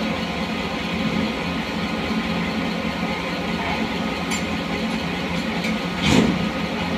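Engine idling steadily, with a brief louder burst about six seconds in.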